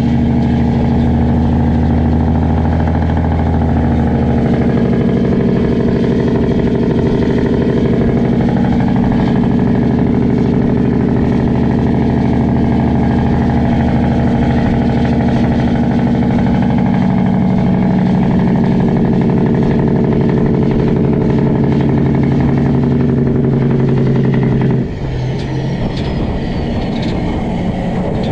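Straight-piped Cat C15 inline-six diesel in a heavy truck, running loud and steady with its pitch wandering slowly. About 25 seconds in the engine sound cuts off suddenly, leaving road and wind noise.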